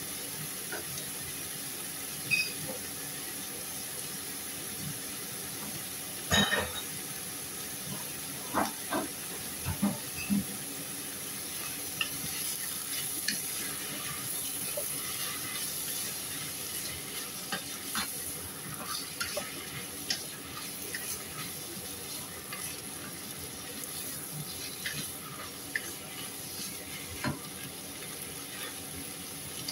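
Sliced sausage and ground meat sizzling in a pot while a wooden spatula stirs them, with a steady hiss and scattered scraping knocks of the spatula against the pan, the loudest about six seconds in and a few more around nine to ten seconds.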